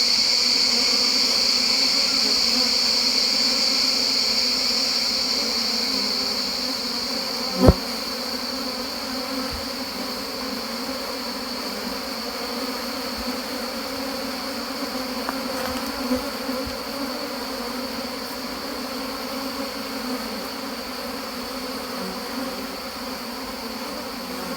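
A mass of wild honey bees buzzing steadily around their broken-open tree-hollow nest, stirred up after being smoked out. A steady high-pitched whine sits over it, loudest in the first few seconds and then fading, and there is a single sharp knock about eight seconds in.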